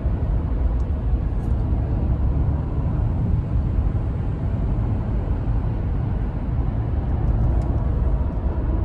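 Steady road and engine noise inside a car's cabin while driving on a highway: an even, low rumble with a hiss above it.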